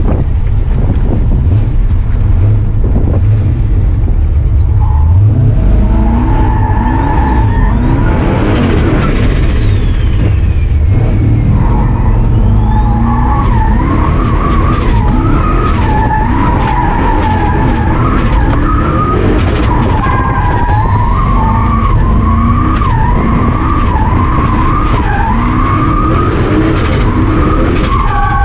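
Turbocharged V8 Dodge pickup driven hard around a drift course: the engine revs climb and drop again and again, with a high whine rising and falling alongside them. From about six seconds in, the tyres squeal in a wavering tone, over a constant low rumble.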